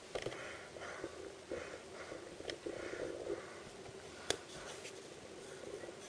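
Hands handling a blind-bag toy package: soft rustling and rubbing with a few light clicks, and one sharper click about four seconds in.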